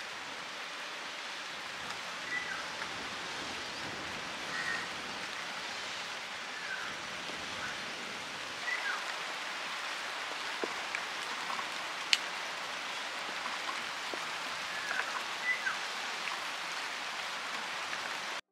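Steady outdoor hiss with brief bird chirps scattered through it, and a single sharp click about twelve seconds in.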